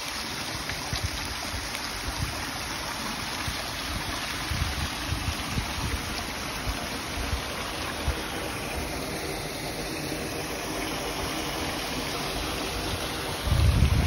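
Fountain water running and splashing steadily over stone steps, with wind buffeting the microphone in low gusts that are strongest near the end.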